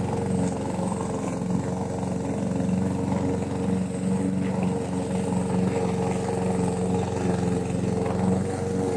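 Gasoline walk-behind lawn mower engine running at a steady speed during a mowing test, with no change in pitch.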